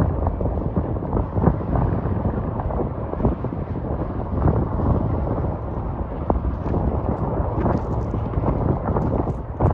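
Wind buffeting the microphone: a steady low rumble with frequent irregular gusts and pops.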